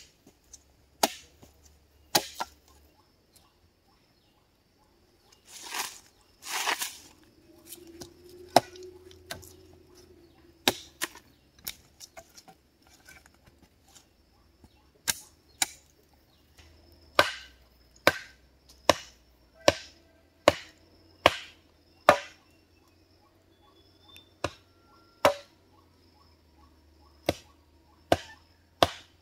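Wood being chopped: a series of sharp, irregular chopping blows, roughly one every second. A couple of longer rasping strokes come about six seconds in. A faint steady high tone sits underneath.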